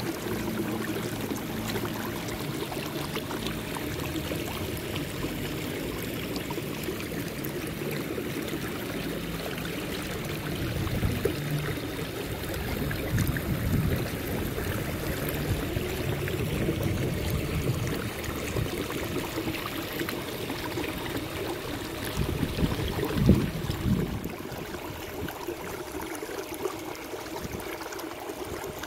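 Water trickling and lapping around a kayak as it is paddled, paddle blades dipping and dripping, with a few low bumps, the loudest about three-quarters of the way through.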